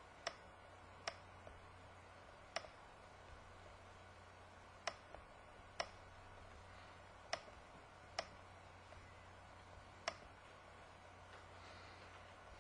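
Computer mouse button clicking: about eight sharp single clicks, spaced irregularly a second or two apart, over a faint steady hum.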